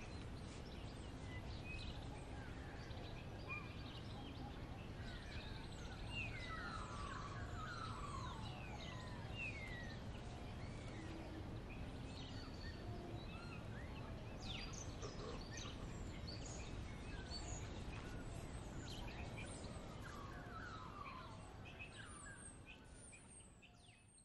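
Several birds singing, with quick falling and rising chirps and whistles, over a steady low rumble of outdoor background noise. All of it fades out over the last couple of seconds.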